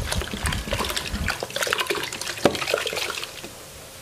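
Sprite soda pouring from an upturned 1.5-litre plastic bottle into a tub of liquid, splashing and fizzing; the pour dies down a little after three seconds in.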